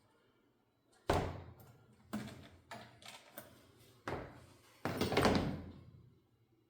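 Hand tools and metal parts being handled and set down, giving a string of sharp knocks and thuds, about one a second, the loudest and longest about five seconds in.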